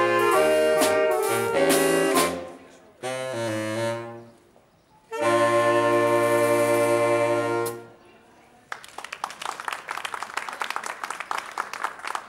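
Saxophone ensemble playing the closing bars of a tune: a few quick phrases, then a short pause and a long held final chord that cuts off about eight seconds in. About a second later, applause starts and continues.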